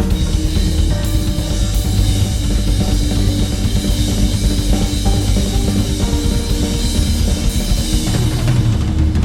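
Drum kit played in a fast, continuous pattern over a backing soundscape with sustained held notes.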